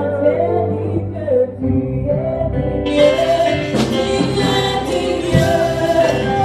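Live gospel worship music: a female lead singer with backing singers over keyboard and electric guitar. About halfway through, the band grows fuller and brighter.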